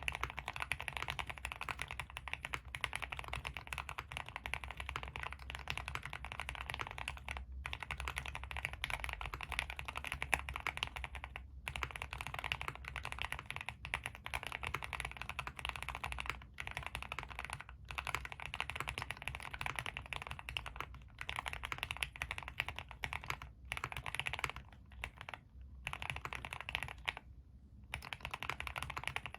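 Fast, continuous typing on a Suit80 custom mechanical keyboard with Tealios v2 linear switches in Cherry top housings, an aluminium plate and GMK keycaps. There are a few short pauses, the longest near the end.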